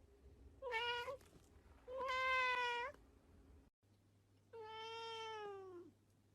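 Domestic cat meowing three times: a short meow, a longer one about a second later, then a long meow that falls in pitch at its end.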